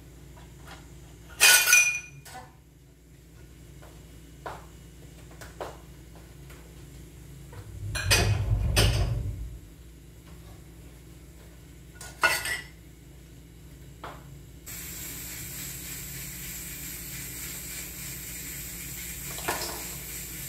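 Kitchen dishes and cutlery clinking and knocking as they are handled at the sink counter: a loud ringing clink about a second and a half in, a longer scraping clatter around eight seconds, another clink near twelve seconds, and smaller knocks between. A steady hiss takes over for the last few seconds.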